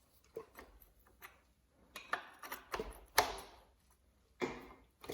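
Scattered metal clicks and clanks of a wrench and socket on the crankshaft of a torn-down 302 engine as it is turned over by hand, in a handful of separate bursts, the loudest about three seconds in.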